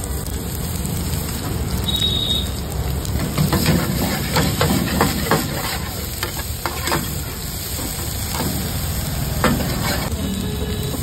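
Soya chaap and sliced onions sizzling in oil in a large metal pan, with a steel ladle scraping and clattering against the pan as the pieces are stirred. The clatter comes in a cluster in the middle, with one more knock near the end.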